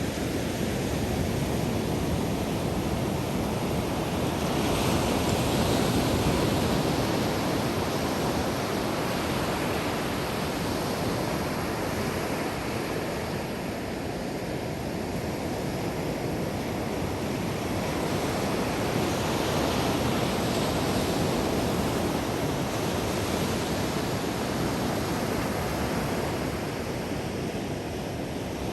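Ocean waves breaking and washing up on a sandy beach, a steady surf rush that swells and eases slowly, with some wind on the microphone.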